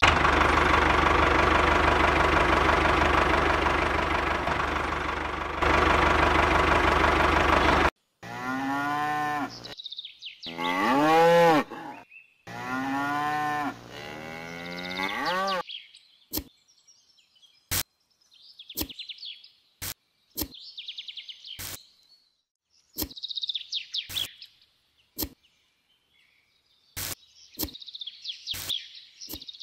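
A tractor engine sound runs steadily for about eight seconds. Then cattle moo several times, each call bending up and down in pitch. After that come sharp single clicks between short bursts of bird chirping.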